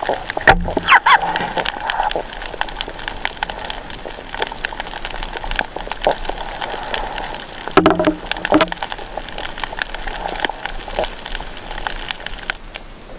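Underwater noise heard through a camera in shallow reef water: a dense, steady crackle of small clicks, with two louder sloshing bursts, about half a second in and about eight seconds in.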